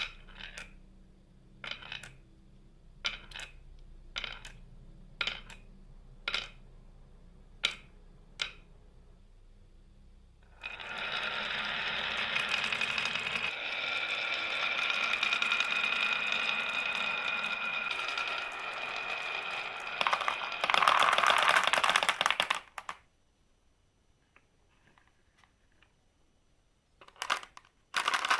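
Marbles on a marble run: sharp clicks about once a second as they drop along the track, then about twelve seconds of continuous rolling with a steady ringing hum, ending in a loud clatter. After a few quiet seconds, more clatter comes near the end.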